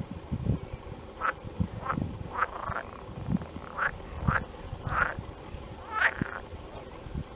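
Frogs calling in a chorus of short, repeated croaks, one or two a second, some overlapping.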